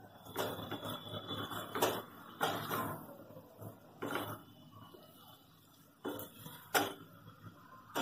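Wooden and silicone spatulas knocking and scraping against a non-stick pan while tossing stir-fried noodles: irregular clatters and scrapes, with a sharper knock about seven seconds in.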